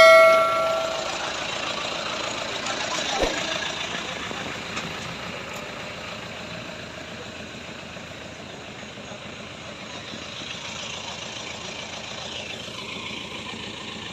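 A metal clang that rings out and dies away in about a second, then a truck engine running steadily.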